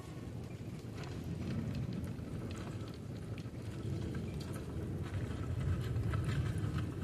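Mangrove-mud ambience: a steady low rumble with faint, scattered ticks and crackles.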